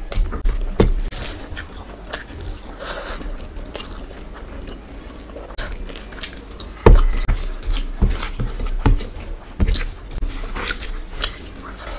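Close-miked eating with the hands: wet chewing and mouth clicks while rice and curry gravy are squished together by hand on a plate. A few dull thumps stand out, about a second in, near seven seconds and near ten seconds.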